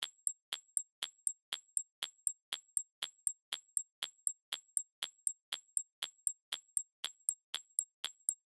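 Quiz countdown-timer sound effect: sharp, evenly spaced clock ticks, about three a second, counting down the time left to answer.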